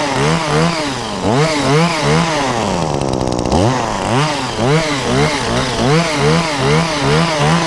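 Shindaiwa multi-tool's small two-stroke engine driving a hedge trimmer head through brush, revved up and down about twice a second, dropping briefly to idle about three seconds in and again near the end.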